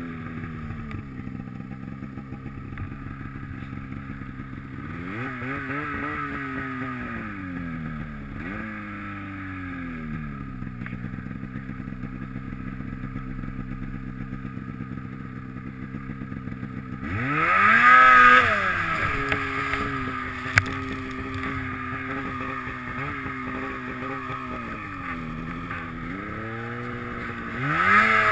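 Snowmobile engine running under the rider, its revs rising and falling as the sled works through the snow. The loudest surge of revs comes about two-thirds of the way through, followed shortly by a single sharp click, and the revs climb again near the end.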